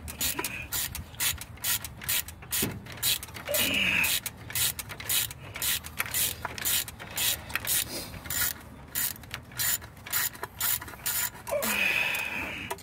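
Hand ratchet wrench clicking in irregular runs of rapid strokes as it turns the water pump bolts on a Nissan CA20E engine.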